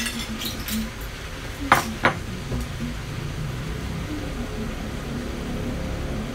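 Cookware clatter at a stovetop frying pan: a few light knocks in the first second as a bowl is tipped into the pan, then two sharp clinks about two seconds in, over a steady low background.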